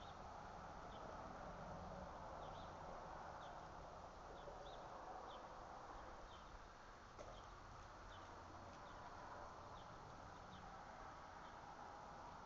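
Faint outdoor ambience: a low steady hiss with short high chirps repeating irregularly, about one to two a second.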